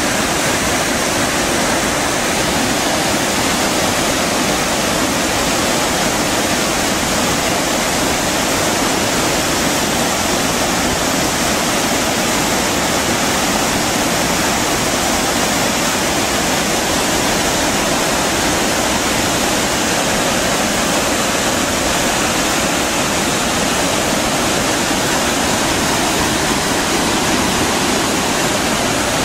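Large waterfall pouring down onto rocks: a loud, steady rush of water.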